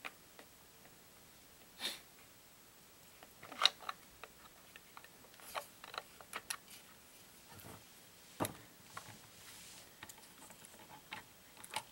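Scattered light clicks and knocks from parts of a radio-controlled truck being handled and fitted together, the loudest a sharp knock a little under four seconds in.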